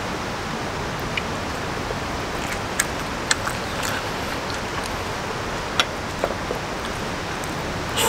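Steady hiss of a campfire under an iron griddle plate, with a few sharp clicks of metal utensils tapping the plate, most of them in the middle of the stretch.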